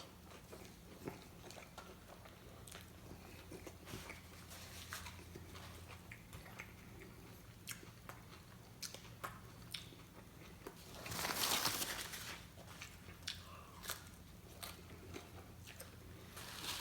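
Someone eating tacos: scattered small bites and chewing crunches, with a louder, noisier stretch lasting about a second and a half around eleven seconds in.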